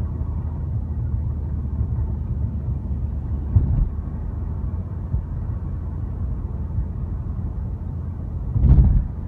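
Steady low rumble of a car driving, heard from inside the cabin. There is a short thump about three and a half seconds in and a louder one near the end.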